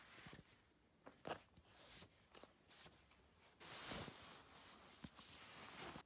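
Faint rustling of clothes being pulled off and dropped onto a tatami mat, with a few soft shuffles and taps of feet.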